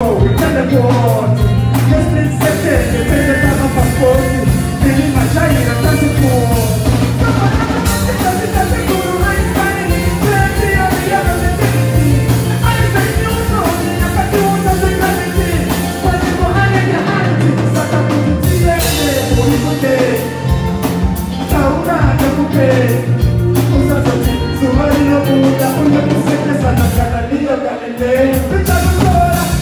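Live band music with singing: a lead singer and female backing singers over electric guitar and a steady beat, amplified through PA speakers.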